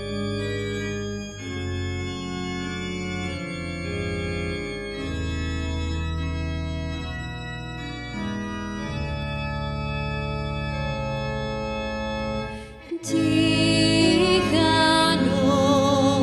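Organ playing slow, held chords over a low bass line. About 13 seconds in there is a short break, and a woman's voice starts singing with vibrato, accompanied by a bowed violin.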